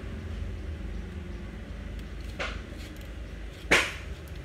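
Insulation paper being worked by hand into the steel slots of a three-phase induction motor stator during rewinding: two brief papery scrapes, the second louder and near the end, over a steady low hum.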